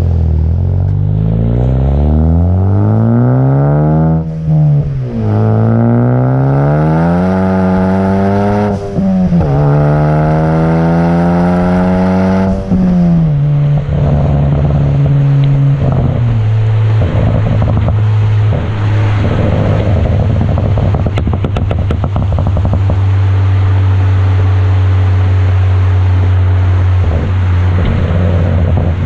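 Car with an AWE Track exhaust accelerating hard through the gears: the exhaust note climbs in three pulls, with short breaks at two upshifts about 4 and 9 seconds in. About 13 seconds in the throttle lifts, and as the revs fall the exhaust crackles and pops on the overrun from a tuned crackle map, then settles into steady running.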